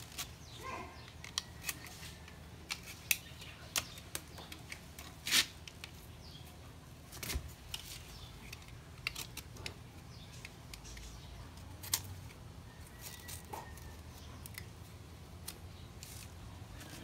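A knife cutting through a fleshy papaya stem: scattered sharp clicks and snicks of the blade, the loudest about five seconds in.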